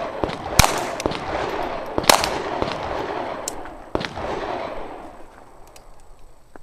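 Pistol firing three loud shots, each about a second and a half apart, with fainter gunshot cracks in between.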